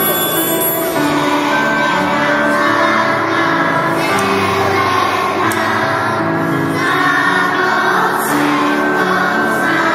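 A group of young children singing a song together with musical accompaniment.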